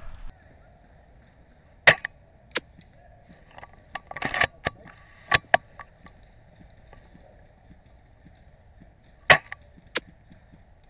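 Airsoft guns firing: scattered sharp single snaps over a quiet field, with a quick cluster in the middle. The two loudest come about two seconds in and again about nine seconds in.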